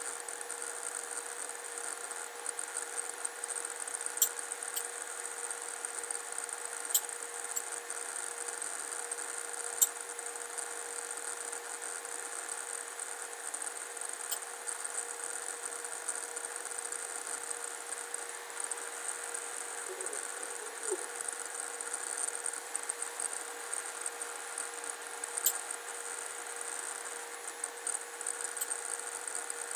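A few sharp computer mouse clicks, several seconds apart, over a steady electrical hum and hiss.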